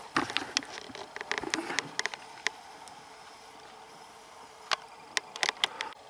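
Footsteps on a dry forest floor of moss, pine needles and twigs, with sharp crackles and snaps in a busy spell over the first couple of seconds and again about five seconds in.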